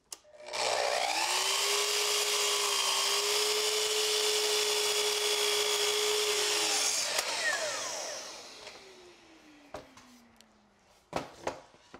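Sliding compound miter saw, in the style of a Festool, spinning up and cutting through a poplar post for about six seconds, then the motor winding down with a falling whine. A few sharp knocks come near the end.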